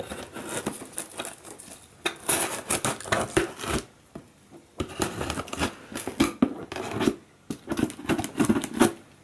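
Scissors cutting along the packing tape on a cardboard box: irregular runs of snips, scraping and tearing of tape and cardboard, with short pauses.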